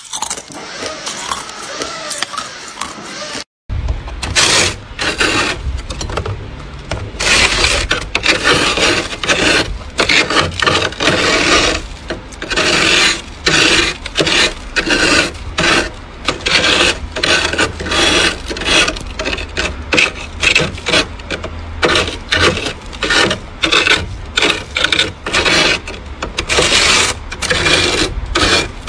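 A spoon scraping thick frost off a freezer's ceiling, starting about four seconds in: quick, repeated scraping strokes that go on steadily.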